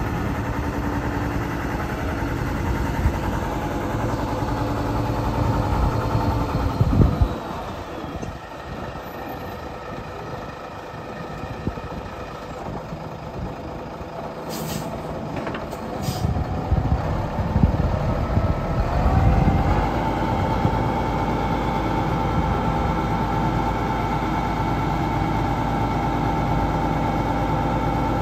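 Mack EM7-300 inline-six diesel of a 1993 Mack RD690S dump truck running. About seven seconds in comes a burst of air-brake hiss as the truck stops, then it idles more quietly, with two faint clicks midway. From about eighteen seconds in the engine speeds up and holds a higher, steady speed while the dump bed is being raised.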